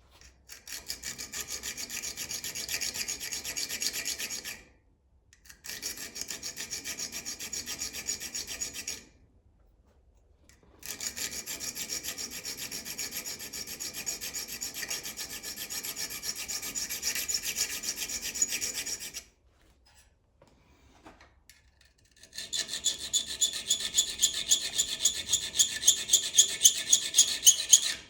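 Small hand file rasping back and forth on the metal of a package opener, shaping it to fit a multi-tool adapter. Four runs of quick, even strokes with short pauses between them, the last run louder with more distinct strokes.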